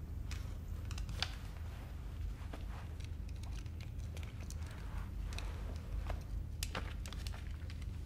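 Quiet indoor room tone with a steady low hum, broken by scattered faint clicks and rustles from people shifting and handling things.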